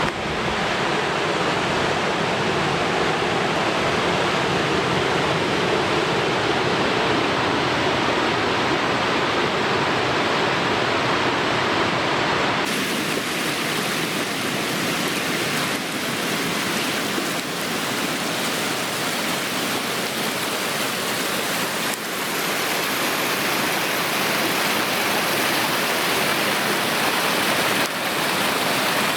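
Waterfall on the North York River: water rushing steadily over the falls. The sound changes abruptly about twelve seconds in, turning brighter and more hissing.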